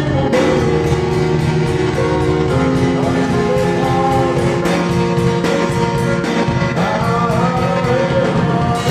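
Music with singing over guitar and a steady beat.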